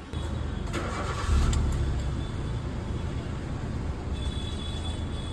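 Hyundai i10 car engine being started: the starter cranks briefly, then the engine catches with a short surge about a second in and settles into a steady idle.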